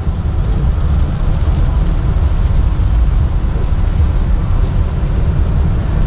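Inside a car driving on a wet highway in heavy rain: a steady low rumble of tyre and road noise, with the hiss of rain over it.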